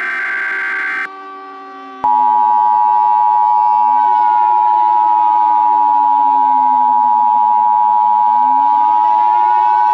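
Emergency Alert System broadcast tones: a short screeching data burst of the SAME header for about the first second, then about two seconds in the loud steady two-tone EAS attention signal starts and holds. Under it a siren wails, its pitch slowly falling, then rising again near the end.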